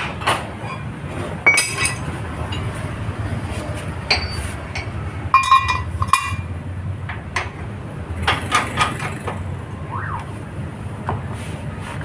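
Metal parts clinking and clanking against each other a handful of times, each strike with a short ring, over a steady low hum.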